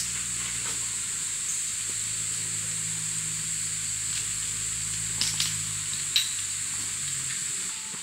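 Steady high-pitched insect drone of a summer forest, under a low steady hum that fades out near the end. A few light clicks come about five and six seconds in.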